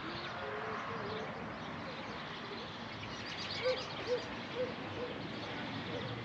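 A bird calling: a string of short hooting, cooing notes, a few early on and then a quicker series of about five, roughly two a second, from a little after three seconds in.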